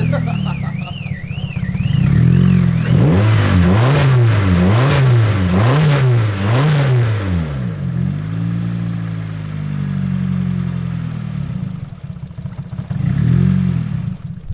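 A warbling car alarm sounds for the first few seconds. Meanwhile the Nissan Silvia S14's SR20 engine is blipped about five times, its pitch rising and falling, then settles to an idle, with two more blips near the end. The misfire persists despite new spark plugs and a refitted coil pack loom.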